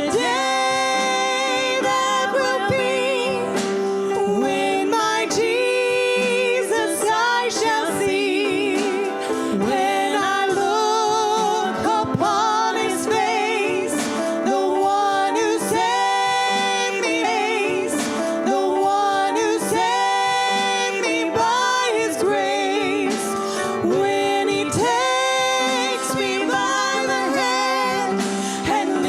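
Gospel hymn singing in a church service: a sung melody with strong vibrato over steady, sustained accompaniment chords.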